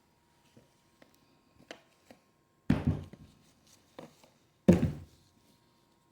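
Two heavy thumps about two seconds apart, with light clicks and taps around them, from the camera's box and its contents being handled and set down during unboxing.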